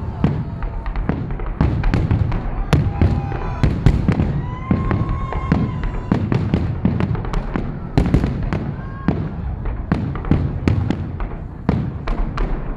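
Aerial fireworks salute bursting: a rapid, irregular run of loud bangs, several a second, over a continuous low rumble.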